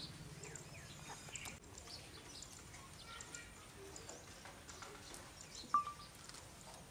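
Light rain with faint, scattered bird chirps. About six seconds in, a single sharp, short note stands out as the loudest sound.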